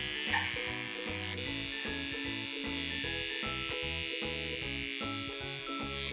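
Small cordless pet clipper buzzing with a thin, high whine as it trims the fur between a toy poodle puppy's paw pads, over light background music. A brief squeak from the puppy's yawn comes about half a second in.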